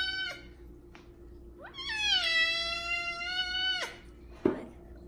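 Large F2 Savannah cat meowing loudly: the end of one meow at the start, then one long drawn-out meow of about two seconds that rises, holds, and drops away at the end. It is a demand to be fed. A short soft thump follows near the end.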